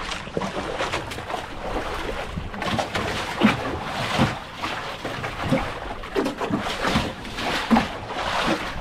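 Water sloshing and splashing around a small fishing boat, with irregular knocks and splashes.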